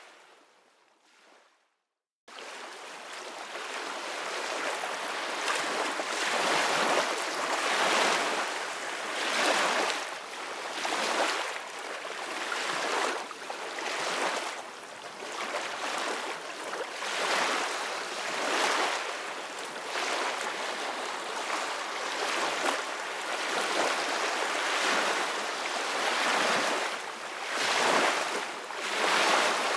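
Ocean surf: waves washing in and drawing back in repeated swells. About two seconds in the sound fades to silence for a moment, then comes back abruptly.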